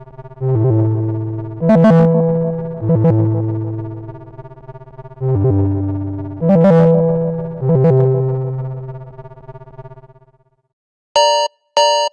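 Xiaomi Redmi 9A alarm tone: a slow synthesizer melody of electric-piano-like notes, each struck and then decaying, in two similar phrases of three notes, fading out about ten seconds in. After a short silence the next alarm tone starts near the end with quick, bright chime beeps.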